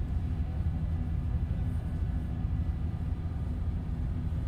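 Diesel generator engine running at a steady speed: a constant low drone with no change in pitch or level.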